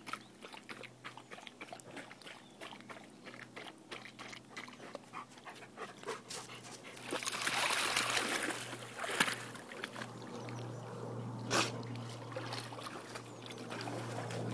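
Lake water splashing and sloshing around a large long-haired dog wading through the shallows: small splashes and drips at first, then a louder run of splashing about seven seconds in as it strides through the water.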